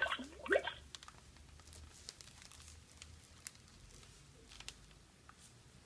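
Plush fabric of a Fisher-Price Soothe & Glow Seahorse being handled, rustling and crinkling as fingers work inside an opening in the toy, with a short rasp right at the start and a few faint clicks after.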